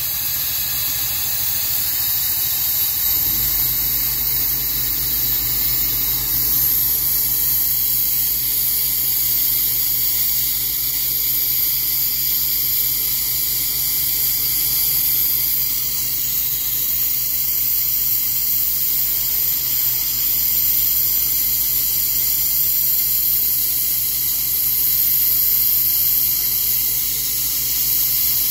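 Sandblasting nozzle fed from a portable blast pot, blasting abrasive through a stencil to cut letters into a granite gravestone: a loud, steady hiss. A low mechanical hum joins about three seconds in.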